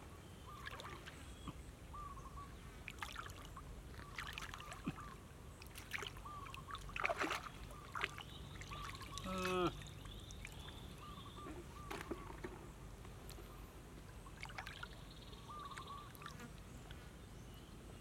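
Shallow muddy water splashing and sloshing in irregular bursts as hands grope through it for fish, with a struggling fish splashing as it is lifted out.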